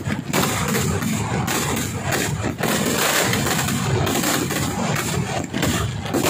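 Fireworks barrage: rapid, overlapping explosions and crackling that run together into a continuous loud rumble.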